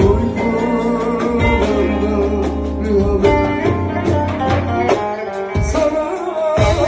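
A Turkish song playing: a wavering melody, which may be the singer's voice, over plucked string instruments and sustained bass notes.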